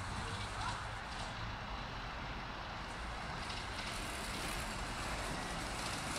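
Coal-fired miniature live-steam locomotive running along a raised ground-level track while pulling a riding car, giving a steady hiss and rumble.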